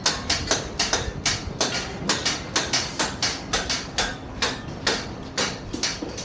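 A rapid, irregular run of sharp knocks, about four a second, each with a short ringing decay.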